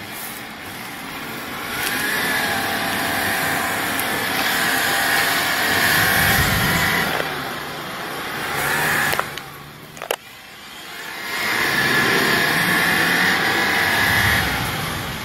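Off-road 4x4's engine revving hard under load in two long pushes with a dip between them. Two sharp knocks come about nine and ten seconds in.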